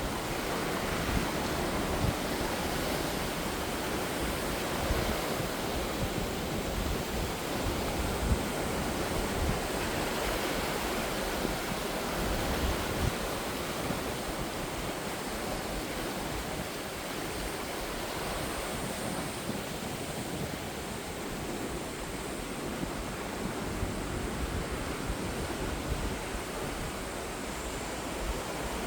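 Sea waves breaking and washing onto the shore in a steady wash of surf noise, with a low rumble underneath.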